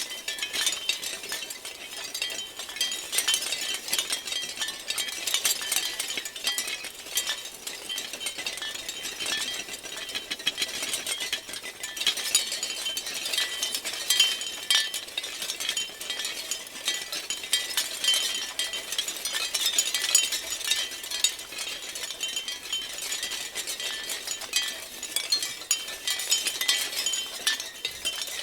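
Shell wind chimes clinking and rattling continuously as they knock together, a dense tinkling clatter with brief louder swells.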